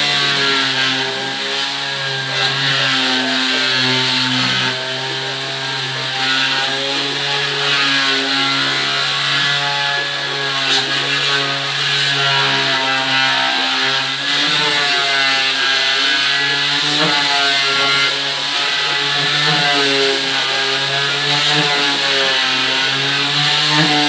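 Electric orbital sander running steadily on a wooden door panel, its motor hum wavering slightly in pitch as it is pushed across the board.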